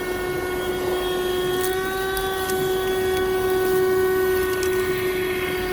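Buture corded handheld car vacuum running, a steady motor whine on one constant pitch, with a few sharp ticks as grit and small stones are sucked up the nozzle.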